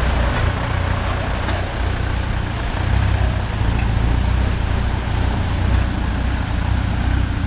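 Engine of an off-road 4x4 jeep running as it crawls along a rough, wet forest track: a steady, low rumble.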